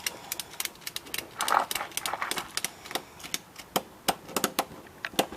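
A rapid, irregular run of sharp clicks and ticks, several a second, with a brief scraping rustle about a second and a half in.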